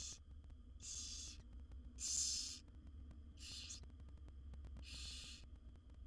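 Barn owl nestlings giving their rasping, hissing begging calls: a series of hisses about half a second long, roughly one every second and a half, the loudest about two seconds in, over a low steady hum.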